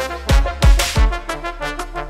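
Trombone ensemble playing, with short repeated notes over a deep kick-drum beat, then settling into held brass chords a little past the middle.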